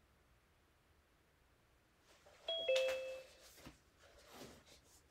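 A short two-note chime, a higher note then a lower one, like a doorbell, about halfway through. Soft rustling and handling noises follow as someone moves close to the microphone.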